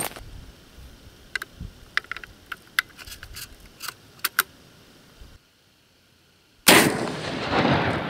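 Scattered small metallic clicks from handling the rifle's action. Then, after a second of dead silence, a single sudden shot from a Marlin 1895CB lever-action rifle in .45-70, about two-thirds of the way in. Its report rolls on as a long, loud echo off the canyon walls.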